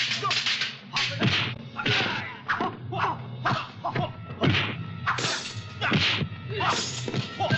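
Kung-fu film fight sound effects: a rapid series of sharp punch whacks and whip-like swishes, about two a second, many with a quick falling swoosh.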